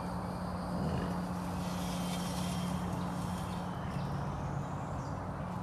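A steady low engine hum, like a vehicle idling, with faint high bird calls in the middle.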